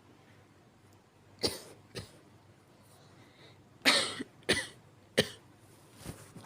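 A person giving a series of weak, short coughs: two about a second and a half in, then a run of three from about four seconds in, the first of these the loudest, and a fainter one near the end.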